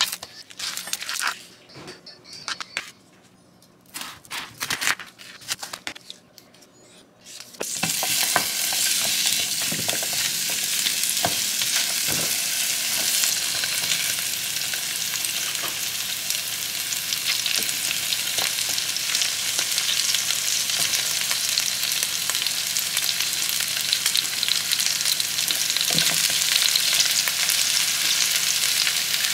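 Scattered taps and clicks of handling at a cutting board, then, about seven seconds in, a steady loud sizzle starts as sliced onions and mushrooms fry in a hot pan, with a few knocks as more vegetables go in.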